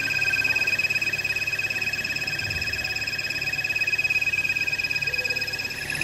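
Chevrolet Malibu hybrid engine running with a steady, high-pitched squeal made of two shrill tones held without a break. The squeal is not the belt: it is loudest at the crankshaft balancer and comes from excessive crankcase vacuum through the PCV system, which the mechanic suspects is making the front crankshaft seal vibrate like a reed.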